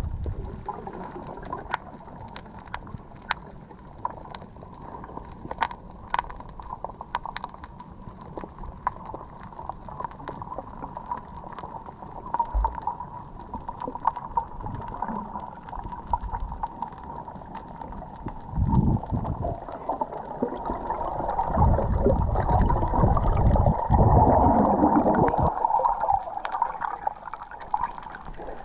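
Muffled underwater sound through a GoPro's waterproof housing while freediving over a coral reef: a steady hiss scattered with many sharp clicks. About two-thirds in it swells into louder gurgling, rushing water and bubbling as the camera moves up toward the surface.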